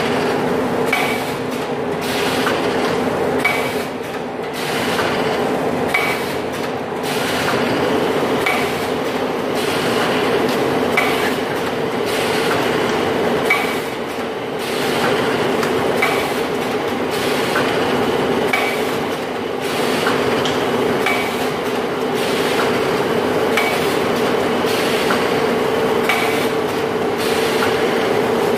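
Vertical form-fill-seal atta packing machine with an auger filler and screw feed conveyor running: a steady motor hum with a short clack about every two and a half seconds.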